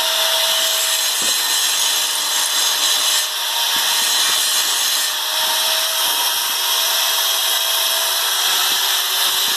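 Steady, harsh hiss of metalworking on a steel part, with a faint steady hum underneath.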